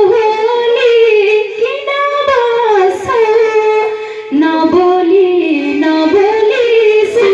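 A woman singing a Nepali dohori folk melody into a microphone: a slow, drawn-out line of long held notes that bend up and down.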